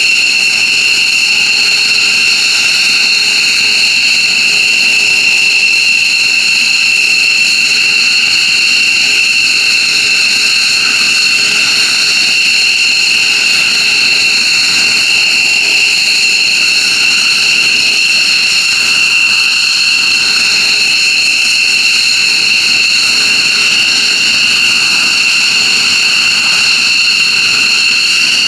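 An F-15J Eagle's twin turbofan jet engines running steadily, with a loud, high-pitched whine.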